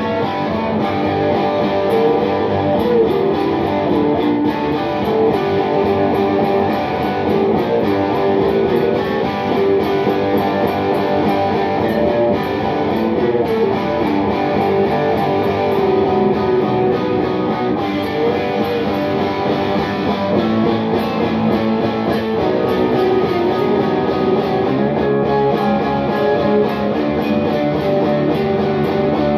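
Telecaster-style electric guitar played without a break, a lead line with several string bends over strummed chords.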